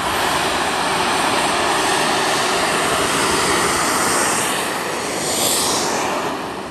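Twin-turbine model jet engines at takeoff power, with two quarter-scale YAK 130s rolling down the runway together: a loud, steady jet whine and rush. About five seconds in, a higher hiss swells and sweeps as one jet passes close.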